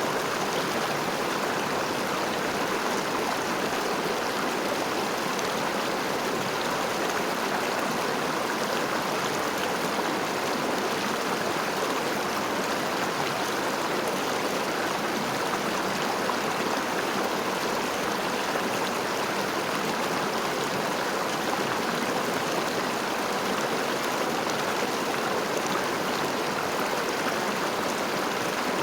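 River water flowing and gurgling over a streambed, a steady, even rush of water.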